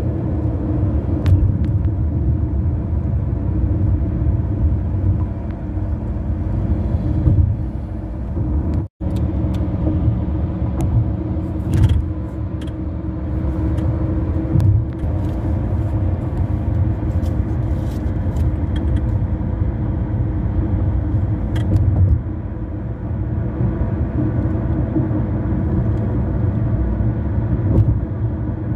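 Car tyres rolling on a grooved concrete bridge deck and highway ramp, heard inside the cabin: a steady road rumble with a low hum, broken by a sharp cut about nine seconds in and marked by a few light clicks.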